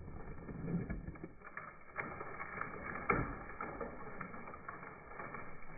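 Faint rustling with a few light, sharp knocks, the clearest about three seconds in: a rope thrown up into a tree, brushing and striking its branches as it goes over a limb.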